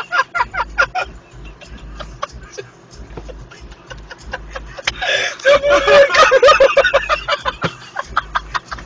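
People laughing hard in rapid, breathy bursts, with a louder, drawn-out high-pitched laugh about five seconds in.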